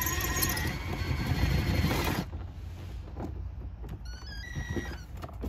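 A cordless driver with a long extension bit spins out a door-panel screw below the armrest of a 2003–07 Chevrolet Silverado's door trim, running for about two seconds, then stopping. A few faint, short high-pitched chirps follow near the end.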